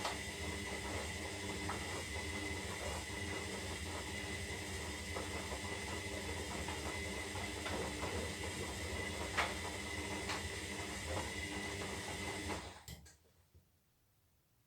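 Zanussi Lindo 300 washing machine running mid-cycle: a steady hum and hiss with a thin high whine and a few light clicks. The sound stops suddenly about 13 seconds in and drops to near silence.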